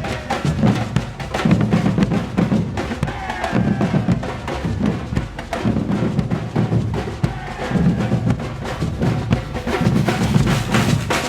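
Batucada drum ensemble playing a dense, driving groove: deep bass drums pulse in a repeating pattern under a constant chatter of snare and higher drum strokes.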